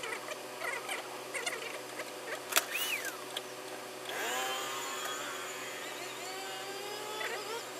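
Paper pattern and fur pieces rustling and being handled on a worktable, with a sharp click about two and a half seconds in. About halfway through, a whine rises in pitch and then holds, wavering slightly.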